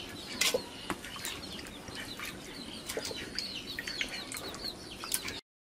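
Many small birds chirping in quick, short calls, with a few sharp knocks as pieces of raw mutton are dropped into an aluminium pot. The sound cuts off abruptly near the end.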